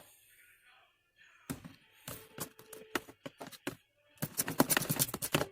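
Irregular taps and knocks of things being handled, starting about a second and a half in and growing busier and louder near the end.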